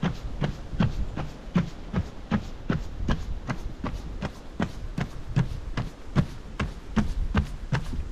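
A runner's footfalls on a wooden boardwalk, an even beat of about two and a half steps a second, over a steady low rumble.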